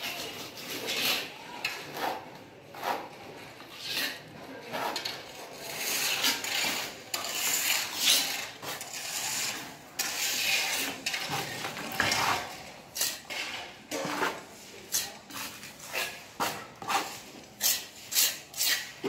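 Trowel scraping and spreading wet mortar over a concrete wall to fill a conduit chase. The strokes come about once a second and grow quicker near the end, some with a light clink of the blade.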